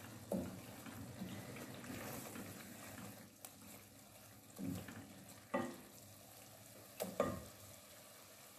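Wooden spatula stirring and mashing soft-cooked tomatoes in an aluminium pot, with a faint sizzle of the masala. In the second half come a few sharp knocks of the wooden spatula against the metal pot, two close together near the end.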